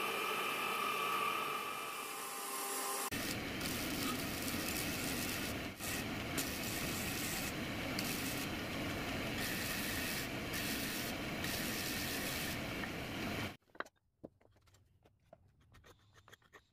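A bandsaw running with a steady whine, then a large shaft-driven disc sander grinding the face of a wood block pressed against it, the sound shifting as the block is pressed and eased off. Near the end it cuts to faint scratching of sandpaper rubbed by hand on wood.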